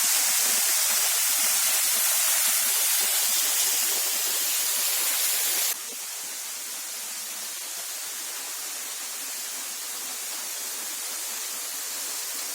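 Waterfall rushing: a steady hiss of falling water that drops abruptly in level and turns duller about halfway through.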